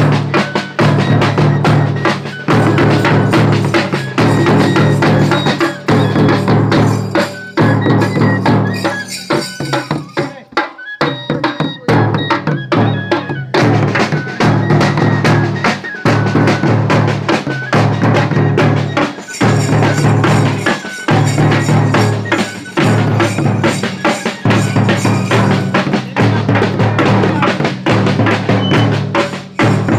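Loud live drumming with a fast, driving beat from drums struck with sticks, the rhythm thinning briefly about ten seconds in.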